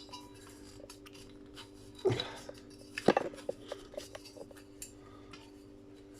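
Metal clanking against brass fittings as a tool is worked on a stubborn brass piece: two louder clanks about two and three seconds in, then lighter clinks and taps.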